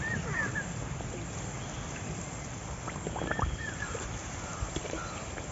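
Triangular nimki pastries sizzling as they deep-fry in hot oil in a kadai, a steady sizzle. A bird chirps a few short notes near the start and again about three seconds in.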